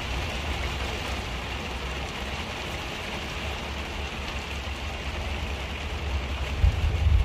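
Heavy rain pelting the windshield and body of a motorhome, heard from inside the cab, with a low rumble underneath that grows louder near the end.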